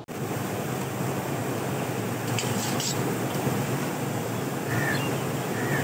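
Metal ladle scraping and clinking against a large steel cooking pot and a steel plate as curry is dished out, with a short cluster of clinks about two and a half seconds in, over a steady outdoor hiss.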